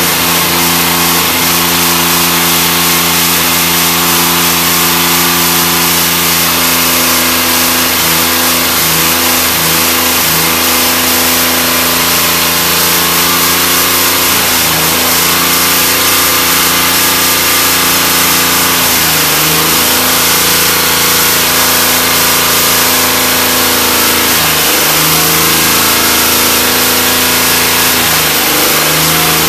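Chevrolet Cavalier Z24's 3.1 L MPFI V6, hood up, running hard at steady revs. The revs sag briefly and recover several times. It is a damaged engine that the owner judges to have a failed wrist pin, being run until it blows.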